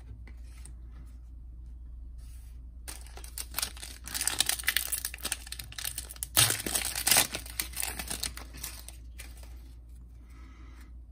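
Foil wrapper of a Panini Donruss trading card pack being torn open and crinkled. It starts about three seconds in, is loudest in the middle, and dies away a couple of seconds before the end.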